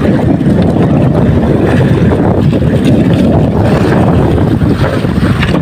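A fishing boat's engine running steadily at close range, a loud, even, low noise.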